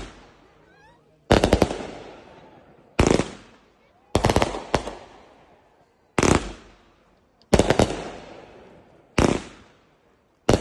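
Aerial fireworks bursting: a series of loud bangs about every second and a half, some doubled into quick clusters of cracks, each trailing off in an echoing rumble.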